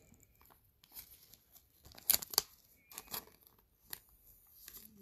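Soft crinkling and rustling from a trading card and a thin plastic card sleeve handled in nitrile-gloved hands. It comes as scattered short crackles, loudest about two seconds in.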